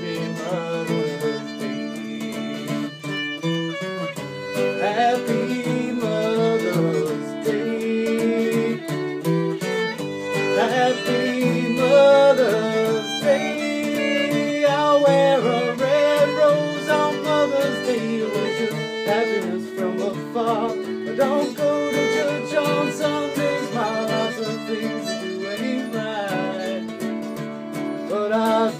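Acoustic guitar played live in an instrumental stretch of a country song, with a lead melody that slides and wavers above the strummed chords.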